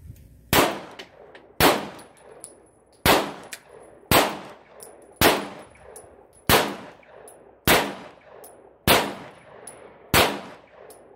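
Pistol shots fired one at a time at a steady pace, nine of them about a second and a bit apart, each a sharp crack followed by a short echoing tail.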